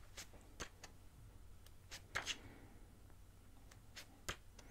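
Pages of a paperback manga volume being turned by hand: a few faint paper rustles and flicks, the loudest about two seconds in.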